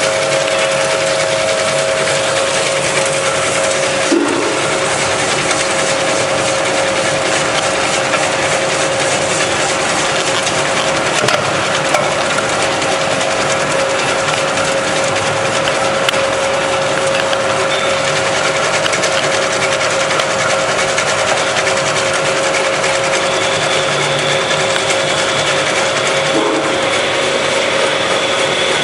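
Pistachio slicing machine running steadily: a dense, continuous mechanical clatter with a steady hum over it and an occasional light knock.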